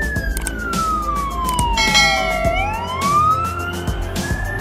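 Police car siren in slow wail, sweeping down from high to low over about two and a half seconds, then rising again. Shorter, higher tones overlap it briefly near the middle.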